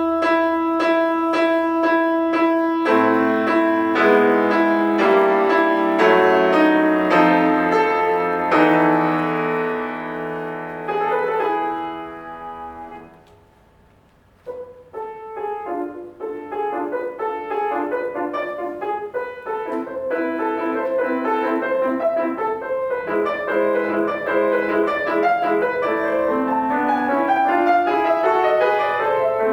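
Solo piano playing classical music: a loud passage of evenly struck notes and chords fades away about thirteen seconds in, then after a short pause quick running notes build up again.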